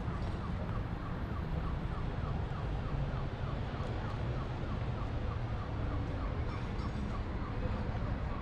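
City street traffic hum with a rapid repeated high chirp, about four chirps a second, that fades out after about five seconds.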